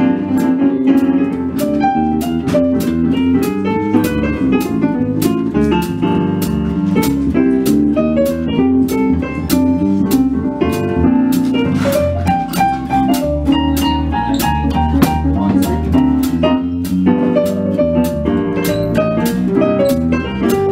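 Jazz duo of a Roland RD-700 digital stage piano and an electric bass playing a swing tune, with piano chords and melody over a bass line. Sharp high ticks keep time a few times a second.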